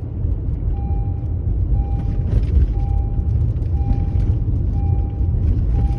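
Car interior rumble with an electronic warning chime beeping steadily about once a second, starting about a second in.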